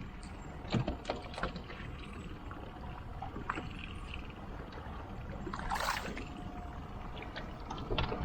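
Fishing boat at sea: a steady low rumble of the engine and water, with a few sharp knocks on deck in the first second and a half and again a few seconds later, and a brief louder rush about six seconds in.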